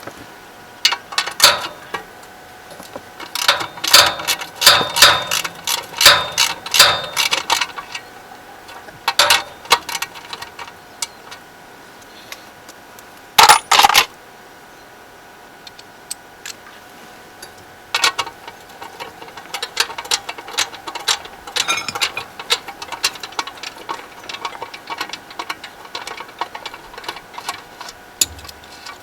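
Hand tools working a bolt loose on a generator: bursts of sharp metallic clicks and clinks, coming in clusters with pauses between.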